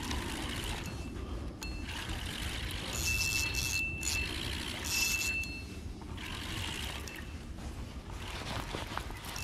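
Fishing reel working a hooked fish in, with brief high whirring bursts about three and five seconds in, over a steady low rumble.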